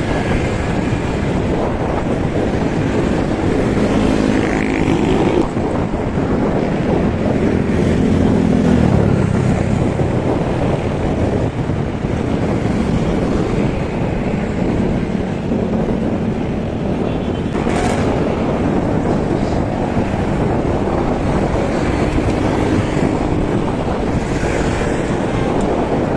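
Wind rushing over the microphone of a camera riding along on a bicycle, mixed with road traffic; a motor vehicle's engine hum rises and fades about four to ten seconds in.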